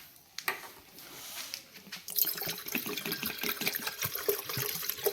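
Water running into an electric kettle as it is filled, a steady splashing stream that starts about two seconds in.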